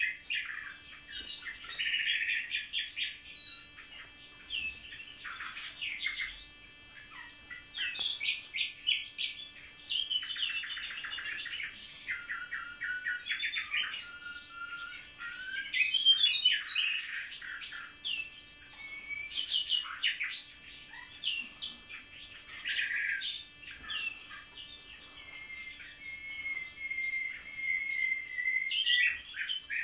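Common nightingales singing: varied phrases of rapidly repeated notes, one after another with short pauses between, and near the end a long run of evenly spaced notes on one pitch.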